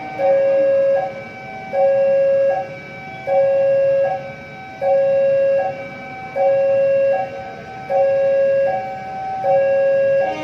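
Railway level crossing warning alarm sounding a steady electronic two-tone signal, a low tone then a higher one, repeating about every second and a half: the warning that a train is approaching the crossing.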